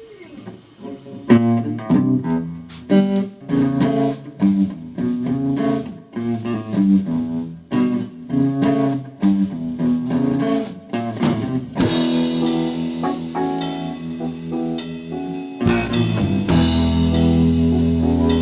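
Blues band playing: guitar notes over drum kit. The band fills out about two-thirds of the way through, and deep sustained low notes come in near the end.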